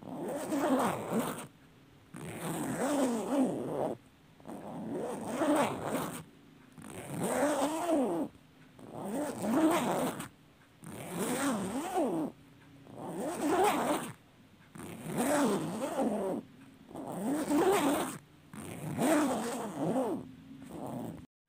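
A long clothing zipper being pulled over and over, about ten long, even pulls of a second and a half each, one every two seconds with short pauses between.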